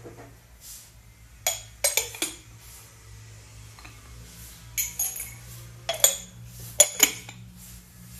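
Ceramic mug, lid and metal spoon clinking and knocking together as they are handled, in short clusters of sharp strikes, with a faint steady low hum underneath.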